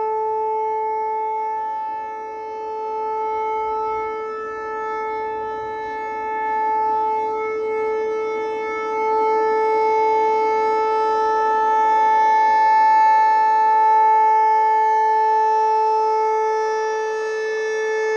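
Outdoor tornado warning siren sounding its test signal: one loud, steady tone that holds its pitch, with its loudness swelling and fading.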